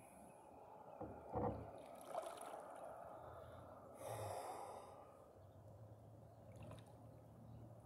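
Soft paddle strokes and water splashing and lapping around a stand-up paddleboard, a few short splashes with the loudest about a second and a half in. A faint low steady hum comes in past the middle.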